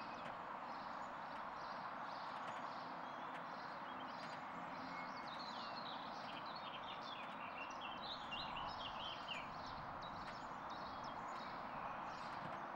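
Outdoor ambience of birds chirping and singing over a steady background rush, with a quick run of falling notes about halfway through.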